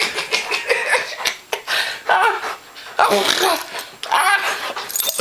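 A person laughing in several short bursts.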